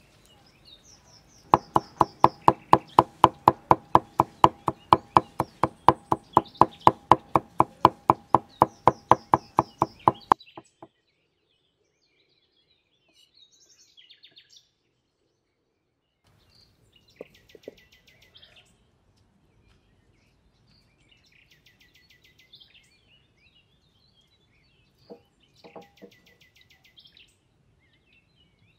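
Cleaver chopping garlic on a wooden chopping board: rapid, steady knocks, about four to five a second, for around nine seconds, then stopping. After that, faint bird chirps and a few soft knocks.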